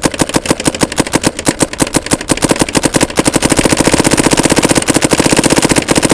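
Dye M3s electronic paintball marker running on compressed air, firing paintballs in a rapid string of sharp pops, the rate picking up about halfway through.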